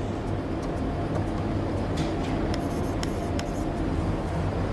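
A few short, scratchy writing strokes over a steady low background rumble.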